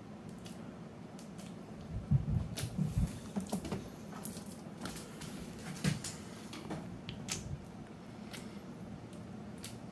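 Uncapping scratcher scraping and picking wax cappings off a honeycomb frame: scattered small scratchy clicks, with a cluster of soft knocks about two to three seconds in and another near six seconds. A low steady hum runs underneath.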